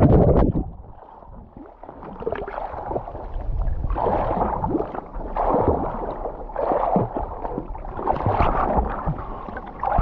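Water sloshing and gurgling right at the microphone in irregular surges as a kitesurfer sits in the water with his kite down. A loud rush of wind and spray cuts off about half a second in.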